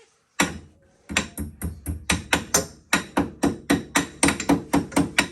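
A small hammer strikes metal on a Polaris Ranger's rear axle assembly. There is a single blow, then a quick, steady run of ringing taps at about four to five a second.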